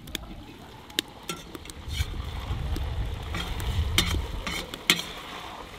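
Lamb ribs with onion and potato sizzling in a kazan while a metal ladle stirs them, with several sharp clinks of metal on the pot.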